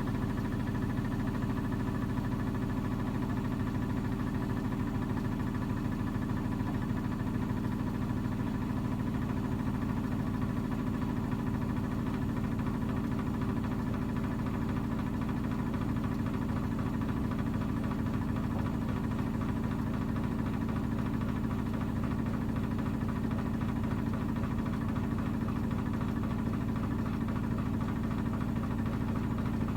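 Miele washing machine running with a steady motor hum and vibration, unchanging throughout.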